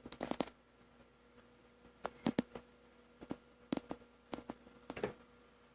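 Faint computer mouse clicks, singly and in quick pairs, scattered over several seconds, with a low steady electrical hum underneath.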